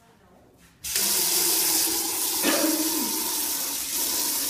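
Bathroom sink faucet running, water pouring steadily into the basin, starting suddenly about a second in. There is a short knock about halfway through.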